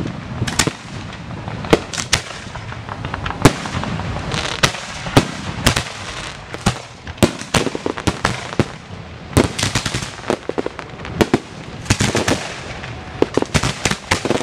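Display firework shells launching from the firing racks at close range: a dense, irregular string of sharp bangs over a steady crackling hiss. The bangs come thickest about nine seconds in and again near the end, where the sound cuts off abruptly.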